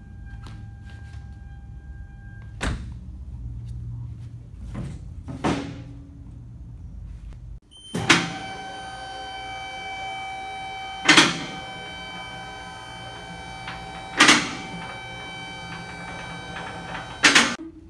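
Car door shutting with a single knock about three seconds in. From about eight seconds in, a steady ringing tone carries on, broken by four loud sharp clacks about three seconds apart.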